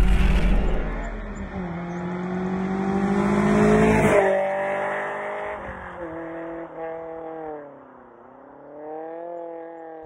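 A vehicle engine revving, loudest about four seconds in; its pitch dips and climbs again near the end.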